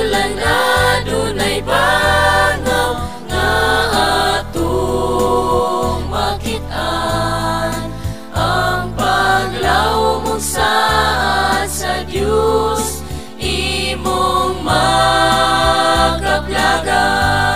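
Vocal group singing a Cebuano Christian song in harmony over instrumental backing with a sustained bass line, the phrases separated by short breaks.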